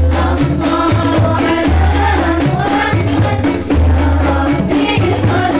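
Rebana performance heard through a PA sound system: a group of women singing together into microphones over frame drums. Deep bass drum booms come about every two seconds, with quicker drum strokes between them.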